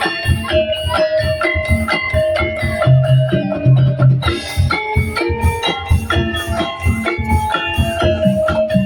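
A tongtek ensemble, a traditional Indonesian street percussion group, playing a piece with a steady fast beat of repeated strikes, pitched melody notes and deep bass notes.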